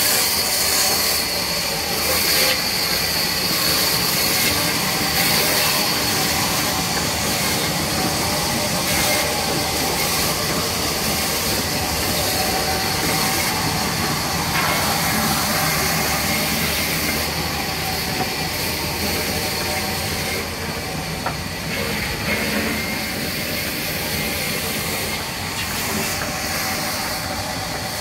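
Sawmill machinery running steadily: a constant high whine over a broad hiss and rumble, getting slightly quieter toward the end.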